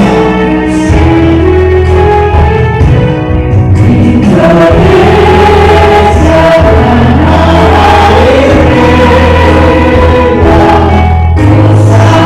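Christian praise-and-worship song sung by a group of men and women into microphones, over a steady instrumental accompaniment with a strong bass.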